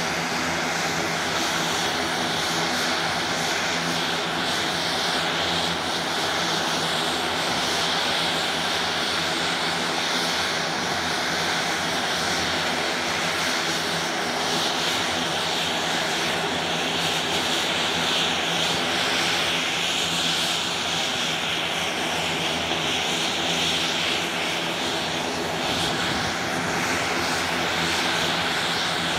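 Beech B100 King Air's twin Garrett TPE331 turboprop engines running steadily on the ground, a high whine over a lower propeller hum.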